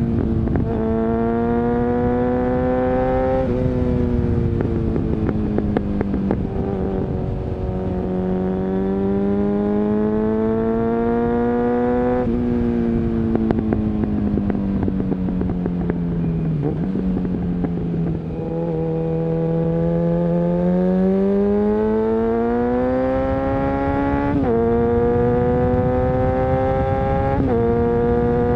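Suzuki Bandit 650's inline-four engine through a Mivv aftermarket exhaust while riding. The note climbs under throttle, sinks as the throttle is closed, and steps abruptly at gear changes, twice near the end.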